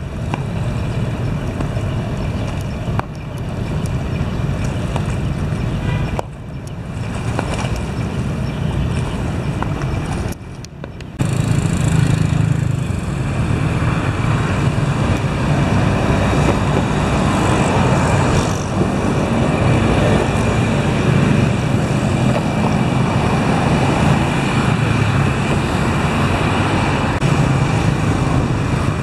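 Steady road traffic of motorbikes and cars passing on a bridge, mixed with wind on the microphone; it dips briefly twice and grows a little louder about a third of the way in.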